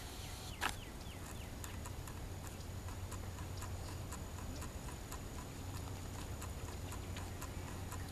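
Footsteps walking at a steady pace, light clicks about two a second, with one sharper knock a little under a second in.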